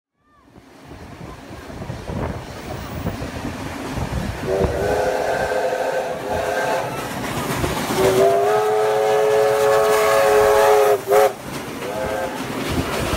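NSW C32 class steam locomotive approaching and passing close, its steam whistle sounding two long chime blasts and a short toot near the end over the running noise of the engine and wheels on the rails. The sound fades in over the first second.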